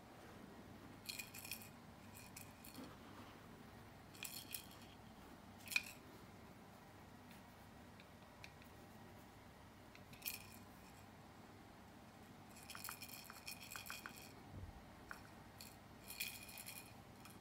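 Small jingle bell on a cat wand toy jingling in short, scattered bursts as the toy is shaken, the sharpest about six seconds in and a cluster of quick jingles near the end.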